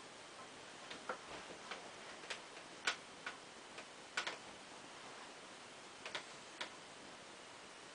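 Faint, irregularly spaced light clicks and ticks, about a dozen, from worn Cole Haan G Series leather loafers shifting and flexing close to the microphone.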